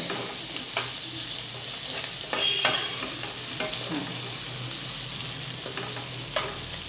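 Masala okra sizzling in a nonstick pan as a spatula stirs it, with several scrapes and taps of the spatula against the pan.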